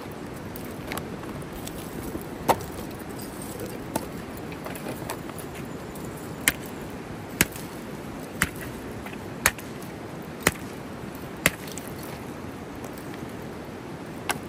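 A knife cutting vegetables on a cutting board: sharp, separate chops, a few scattered at first, then about one a second.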